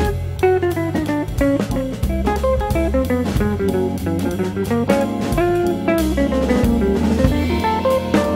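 Background music: plucked guitar over a drum kit, in a jazzy style, with a steady beat.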